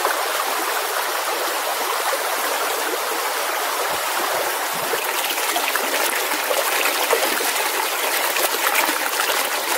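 Shallow, fast-flowing stream running steadily: a continuous rush of water with no break.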